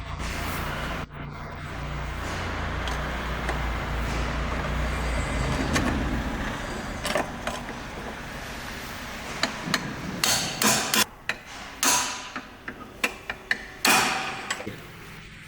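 A steady low hum, then from about ten seconds in a run of sharp knocks and taps on something hard, a dozen or so at uneven spacing.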